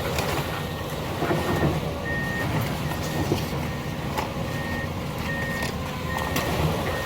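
Demolition equipment's backup alarm beeping steadily over a diesel engine running. Scattered knocks and cracks of debris come through.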